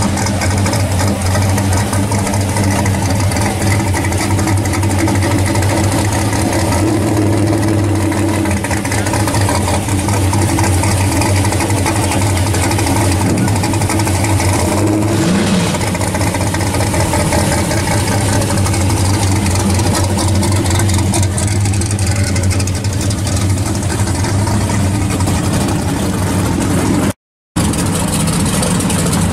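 Modified V8 engine of a first-generation Chevrolet Camaro SS idling steadily, with a brief blip of revs about halfway through. The sound cuts out for a moment near the end, and then another engine idles.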